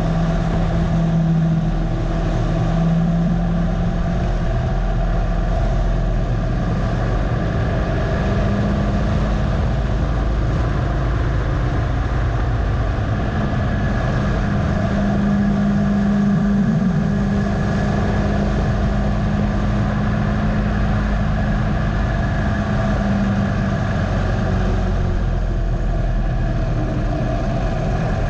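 Harley-Davidson Dyna Low Rider's air-cooled V-twin running under way at track speed, with wind rushing past. The engine note climbs through the middle as the bike speeds up, then drops back near the end as it slows for a corner.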